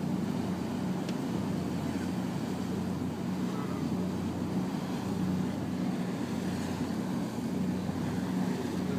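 Engine of a sightseeing water bus under way, a steady low hum heard from inside the passenger cabin.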